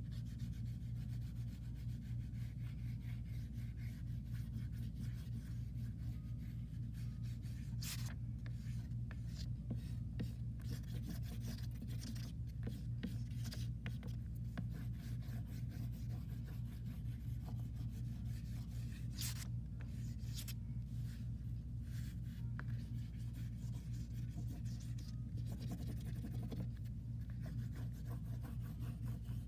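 Purple oil pastel scratching and rubbing across paper in quick, repeated strokes, with a few louder strokes now and then. A steady low hum runs underneath.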